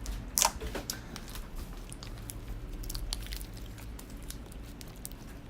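Slime with Cheetos mixed in being folded and squeezed by hand: a steady run of small irregular clicks, pops and crackles.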